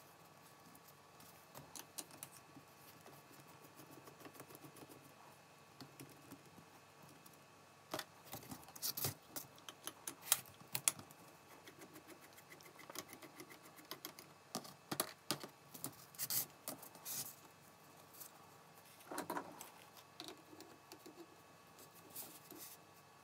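Light metallic clicks and clinks of a starter motor being taken apart by hand: a nut driver working the end bolts, and metal parts and tools knocking as they are handled and set down. The clicks come in busy clusters in the middle, with one duller knock near the end.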